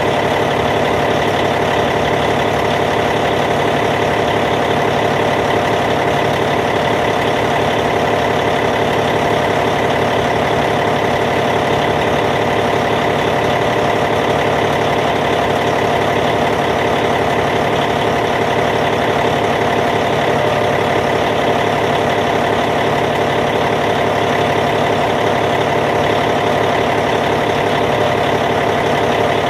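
Caterpillar C15 diesel engine of a Cat D8T bulldozer idling steadily, with an even, unchanging note.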